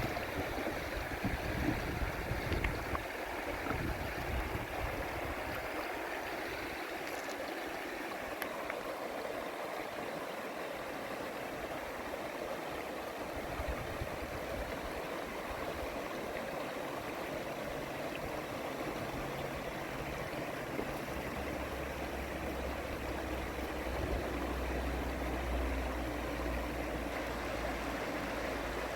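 River water flowing steadily, an even rushing noise. A low rumble joins about two-thirds of the way in.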